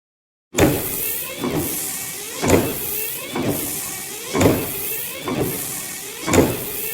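Dubbed-on monster sound effect: a steady rushing whoosh with a heavy beat about once a second, stronger every second beat, like giant wings flapping for a flying Gyaos.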